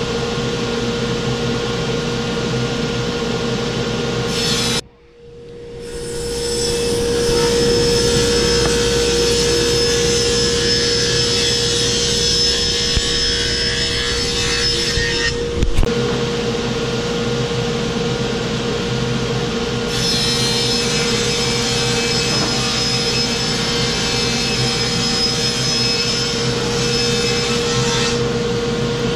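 Table saw running with a steady hum while its blade rips through sheets of plywood, two long cuts of about ten seconds each, the second starting about twenty seconds in.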